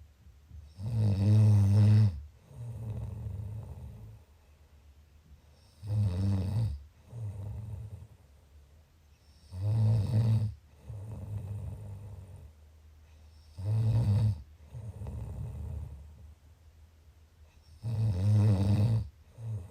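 Snoring in a slow, regular rhythm: five strong snores about four seconds apart, each followed by a quieter breath.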